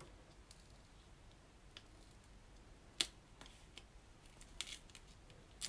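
Faint, scattered small clicks and ticks as adhesive craft vinyl is weeded from its backing sheet with a pointed weeding hook, the sharpest click about three seconds in.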